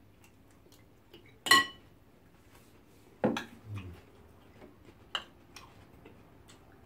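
Metal cutlery clinking against glass dishes, three separate sharp clinks. The loudest comes about one and a half seconds in and rings briefly like glass; the others fall near the middle and about three quarters of the way through.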